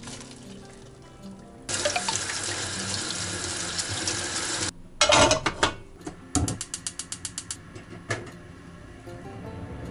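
A kitchen tap running hard into a steel sink as glass noodles are rinsed in a plastic colander; the water cuts off suddenly. A few clattering knocks follow, then a rapid run of about ten clicks from a gas stove's igniter lighting a burner.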